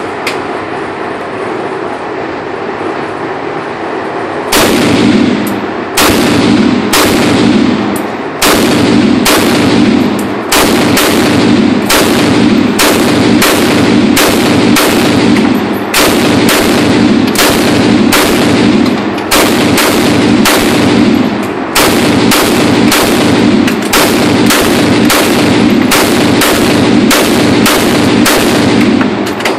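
Mini Draco, an AK-pattern pistol in 7.62×39 mm, fired single shot after single shot: a long even string of about thirty shots, roughly one every two-thirds of a second, each ringing off the walls of an indoor range. The first shot comes about four and a half seconds in, after a steady background hum.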